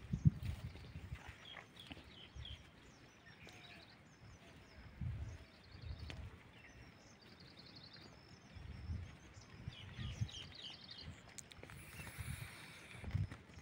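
Small birds chirping and trilling again and again, high-pitched, over irregular low rumbles on the microphone.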